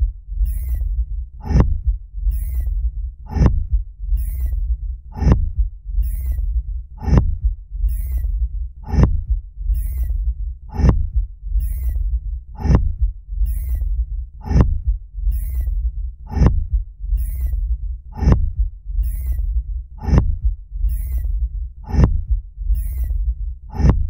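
Sound effect of a thumper, the device that beats a rhythm into the sand to call sandworms. It strikes in a steady rhythm, a heavy thump about every two seconds with a lighter knock between, over a constant low rumble.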